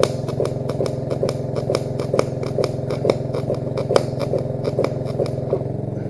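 Engine-drive welder's engine running steadily under load, with the irregular crackling and popping of a MIG arc, several pops a second, as wire is welded on the constant-current setting. The arc is running hot with an uneven rhythm, which the welders suspect comes from voltage fluctuation or a faulty solenoid.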